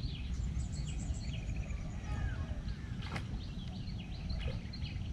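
Small birds chirping: many short, high, falling calls repeating quickly, over a steady low rumble. One sharp click about three seconds in.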